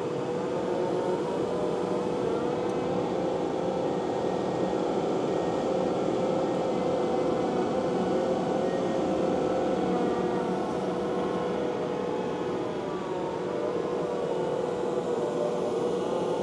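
Takeuchi TL12 V2 compact track loader running a high-flow hydraulic grinding attachment through thick tall grass and wet clay: a steady engine and hydraulic drone with a constant whine, working under heavy load.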